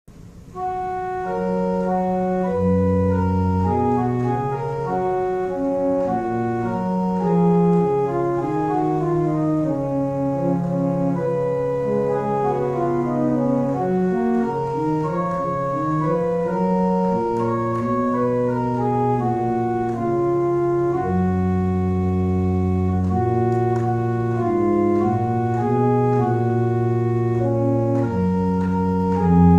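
Church pipe organ playing a slow piece in held chords, a low bass line sustained under moving upper notes. It comes in about half a second in.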